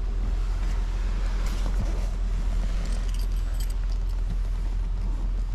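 Factory Five Mk III Cobra replica's Ford V8 idling steadily while it warms up after a cold start.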